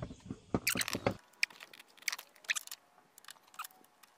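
A hand tool clicking and scraping against a car door hinge bolt while it is being worked loose, in a few irregular sharp metallic clicks, some with a short ring.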